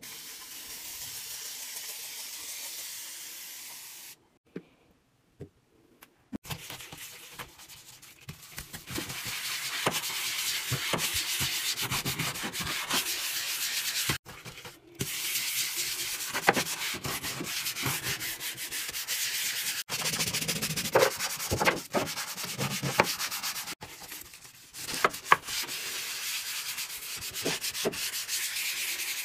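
A spray bottle hissing out a steady mist for about four seconds, then a sponge scrubbing a countertop: a long run of quick back-and-forth rubbing strokes.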